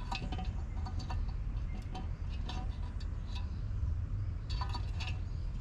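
Scattered light metallic clinks and taps of small metal parts and hand tools being handled, a cluster near the start and another near the end, over a steady low rumble.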